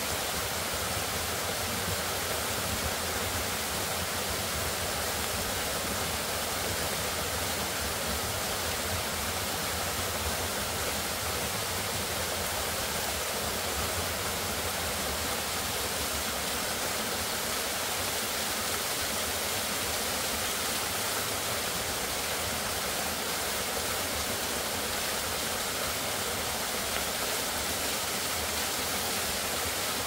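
Narrow waterfall sliding down a steep rock face into a plunge pool: a steady, unbroken rush of falling and splashing water.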